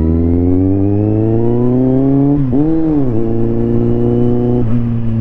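Kawasaki Z750R's inline-four engine under way, its pitch climbing steadily as it pulls through the revs, then dipping and swelling briefly about halfway before holding a near-steady note.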